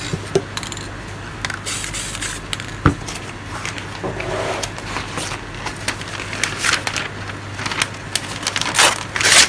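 Short hissing bursts from an aerosol spray paint can, among scattered crackles and scrapes of paper being handled. The loudest burst comes near the end.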